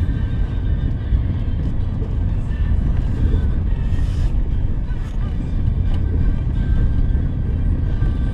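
Cabin noise of a 2023 Toyota Rush GR Sport automatic driving slowly: a steady low rumble of engine and tyres on the road, with background music playing.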